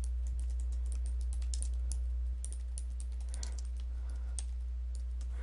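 Computer keyboard typing: quick, irregular runs of keystroke clicks as a line of text is typed. A steady low electrical hum runs underneath and drops slightly in level about two seconds in.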